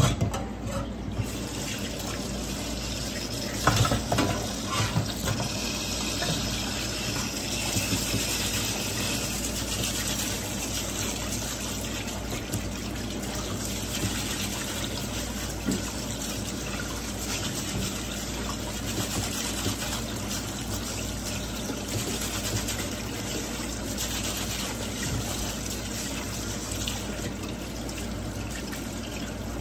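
Kitchen tap running in a steady stream, with a few short knocks about four seconds in.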